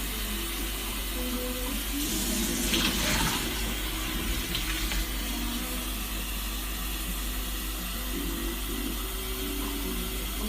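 Water running briefly from a kitchen tap about two seconds in, with a shorter splash a couple of seconds later, over faint radio music.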